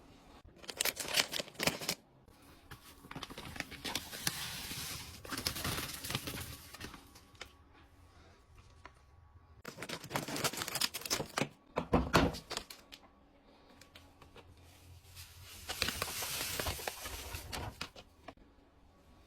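Laundry detergent powder and its packaging being handled and poured, in four bursts of rustling, crackling noise with sharp clicks.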